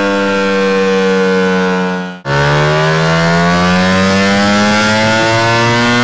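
Ducati Panigale V4 engine held at steady high revs through a Spark aftermarket exhaust, a siren-like drone. The pitch sags slightly, breaks off for an instant about two seconds in, returns lower and climbs slowly, then cuts off abruptly at the end.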